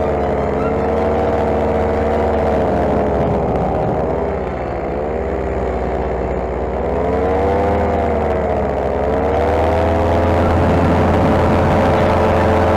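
Paramotor engine running under power, its pitch dipping and recovering twice.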